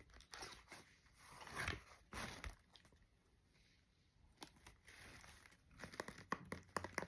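Cosmetics packaging being opened by hand: faint crinkling and tearing with scattered small clicks and rustles. It goes quiet for about a second in the middle, then the clicks and rustles pick up again and grow busier near the end.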